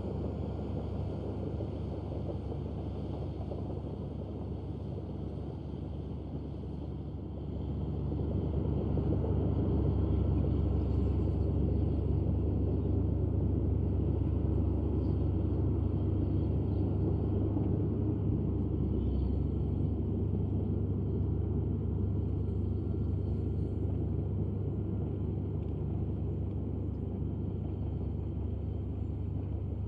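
Komatsu D155A bulldozer's diesel engine running steadily. It grows louder about eight seconds in and then holds at that level.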